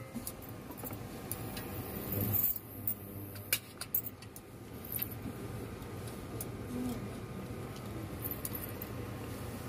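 Kitchen utensils and a steel pot being handled: a brief louder rustle about two seconds in and a few light metal clinks, over a steady low background hiss.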